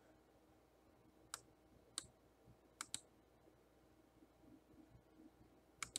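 Computer mouse clicking in near silence: single clicks about a second and two seconds in, a quick double click near three seconds, and another click just before the end.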